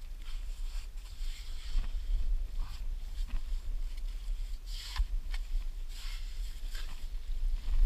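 Digging in wet, muddy sand with a short shovel and a gloved hand: a series of short, irregular scrapes, over a steady low rumble.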